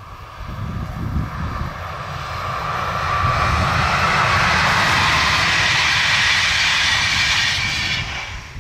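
Electric locomotive-hauled passenger train of new coaches passing at speed: a rush of wheels on rail that swells over the first few seconds, stays loud while the coaches go by, then drops away quickly near the end as the last car passes.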